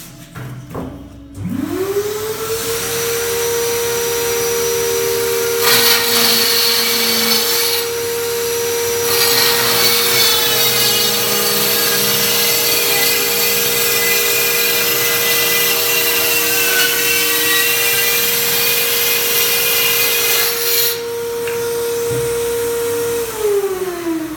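A workshop vacuum cleaner is switched on remotely through a remote-controlled socket: its motor spins up to a steady whine about a second in and runs on. From about 6 s to about 21 s a cordless power tool runs in two spells over the whine, the first short and the second long. Near the end the vacuum is switched off and its whine falls as the motor spins down.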